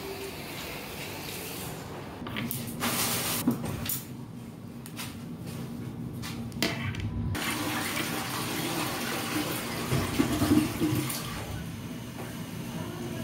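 Toilets flushing and water running in a public restroom, in several separate rushes of water noise.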